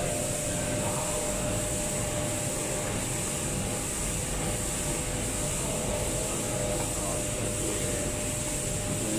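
Steady mechanical hum and hiss of machinery, with a few faint steady tones over it.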